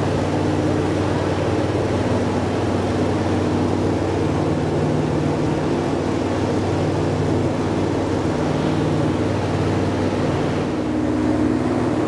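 Uber Boat river catamaran's engines droning steadily under way, heard from the open outside deck, over a constant rush of water and wind.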